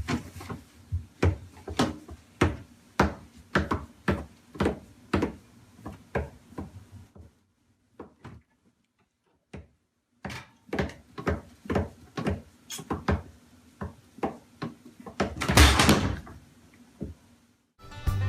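A series of irregular knocks and taps, about two or three a second, breaking off for a few seconds in the middle and then resuming, with a short noisy scuffle near the end.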